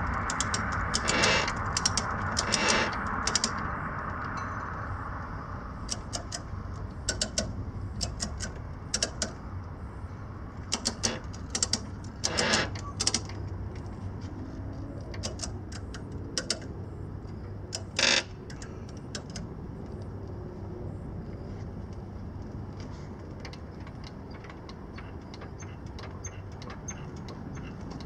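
Ratcheting tie-down strap buckles and their metal hooks clicking and clinking irregularly as the straps are cinched and the bike is secured, with several quick runs of ratchet clicks. A rushing noise in the first few seconds and a steady low hum lie under it.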